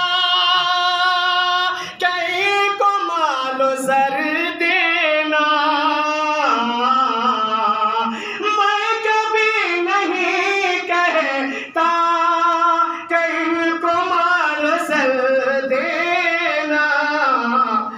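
A man singing a naat unaccompanied, in long held notes with ornamented, wavering melodic turns, pausing briefly for breath a few times.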